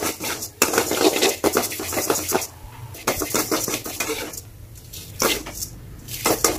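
A metal ladle scraping and stirring black urad dal in a metal kadai as the dal roasts in a little oil until reddish: dry rattling of the grains and metal scraping on metal. It comes in about four bursts with short pauses.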